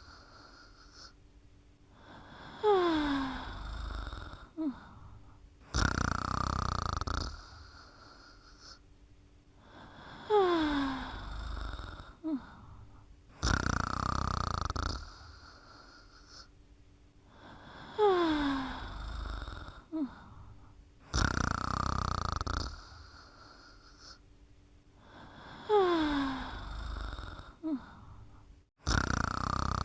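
Snoring in slow, regular cycles about every seven to eight seconds, four in all. Each cycle has a loud breath with a whistling note that falls in pitch, a short catch about two seconds later, then a broader, longer breath.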